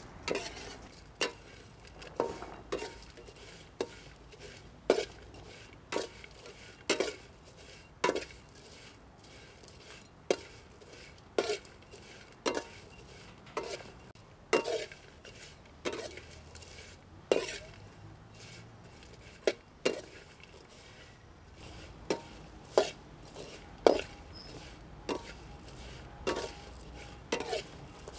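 Metal spatula stirring dried fish in a metal wok, scraping and clinking against the pan about once a second.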